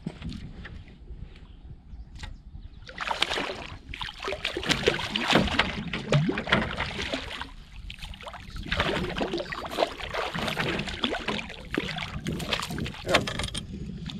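Hooked lake trout splashing and thrashing at the surface beside a canoe as it is reeled in: bursts of splashing begin about three seconds in, ease off briefly about eight seconds in, then carry on until near the end.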